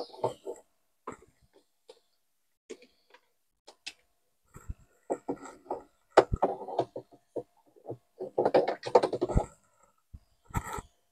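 A stick knocking and scraping inside an EazyPod pond filter drum, with irregular bursts of water sloshing and gurgling as the last dirty water swirls out through the drain. Scattered sharp taps throughout, with the busiest stretches of sloshing about halfway through and near the end.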